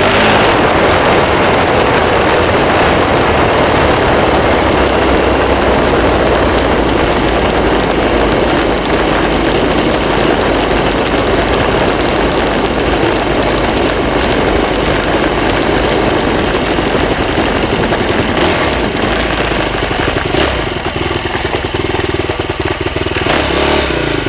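Off-road motorbike engine running loud and steady. Its note evens out to a held pitch near the end.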